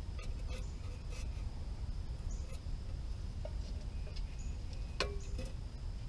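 Tin cans and the metal stove pipe of a homemade can-built camp heater clinking as they are lifted and handled: a few light clinks in the first second and a sharper metal clank with a brief ring about five seconds in, over a steady low background rumble.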